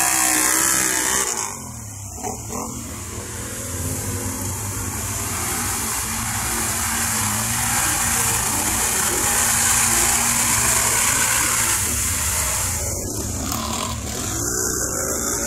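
ATV engine running on the trail, easing off about a second and a half in, then building back up under throttle.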